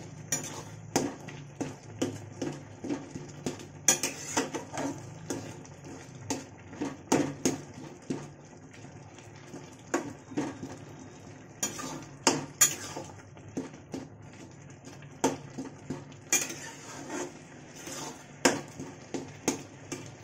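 Metal spatula mashing softened tomatoes in a metal kadhai: irregular scraping and clinking of metal on metal, with a few sharper knocks against the pan.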